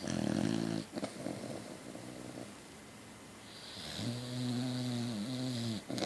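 A beagle–cocker spaniel mix dog snoring in its sleep. A loud snore comes in the first second, then a fainter breath, then a long, steady-pitched snore from about four seconds in that dips briefly near the end.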